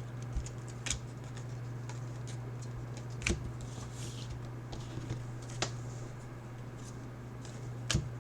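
Trading cards and packs being handled: soft rustling with four sharp clicks spaced a couple of seconds apart, over a steady low hum.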